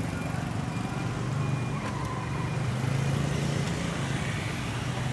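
Steady hum of street traffic, engines of passing vehicles running without a break.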